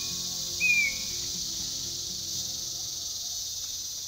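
Steady high-pitched drone of tropical forest insects, with two brief whistled calls near the start.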